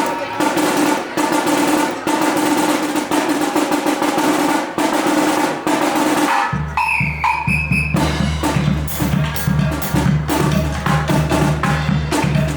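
Live band music driven by drums: rapid snare-drum rolls and strokes, with a low bass part coming in about six seconds in under the continuing drumming.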